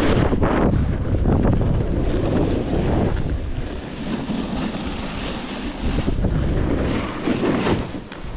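Wind rushing over the microphone as a snowboard slides downhill, its base and edges hissing and scraping over packed snow, the noise swelling and easing as the rider turns.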